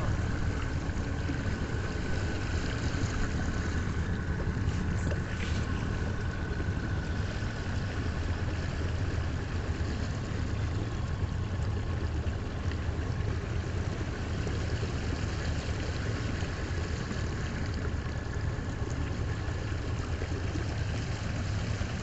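A small motorboat's engine running steadily while the boat is under way, a constant low drone with water and wind noise over it.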